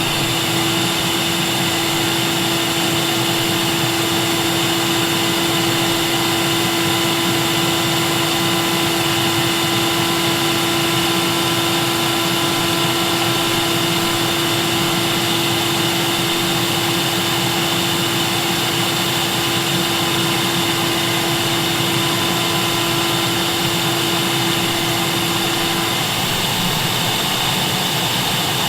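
Vacuum cleaner motor running steadily with a high whine over a wide rush of air. A low hum within it drops out near the end.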